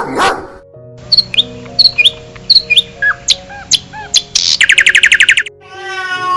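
Small bird chirping: a series of short, sharp chirps about three-quarters of a second apart, then a fast trill lasting about a second, over soft background music.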